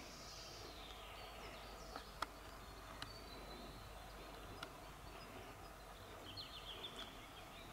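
Faint outdoor ambience with a few high bird chirps, a quick run of them near the end, and a handful of faint scattered clicks.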